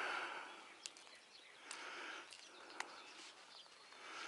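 Faint outdoor ambience with a few light clicks, after a breathy hiss that fades away at the start.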